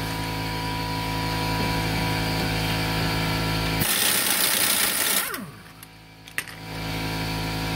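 Husky cordless impact wrench hammering steadily on a sway bar link nut, trying to break it loose. About four seconds in the sound turns into a loud hiss-like whir, then the gun stops for about a second, its motor winding down, before the hammering starts again near the end.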